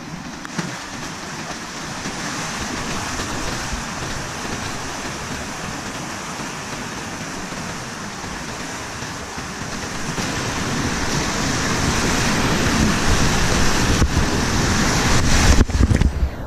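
Whitewater rapid rushing around a kayak, growing louder from about ten seconds in as the boat runs into the drop. Near the end water splashes over the microphone, with loud splashes and the sound briefly muffled.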